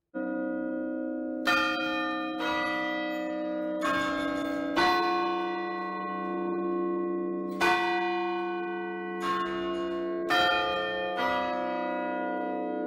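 Church tower bells from a ring of ten, chiming a slow tune: about eight single strokes at uneven spacing, on bells of different pitch. Each note hums on and overlaps the next. The sound breaks in suddenly at the start.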